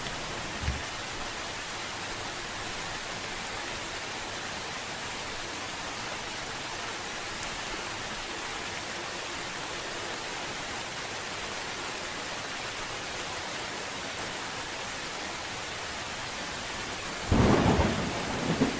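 Steady rain falling, with a sudden loud clap of thunder about seventeen seconds in that rumbles on to the end.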